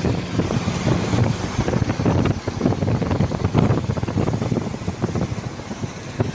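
Wind buffeting the microphone from a moving vehicle, with low road and engine noise underneath.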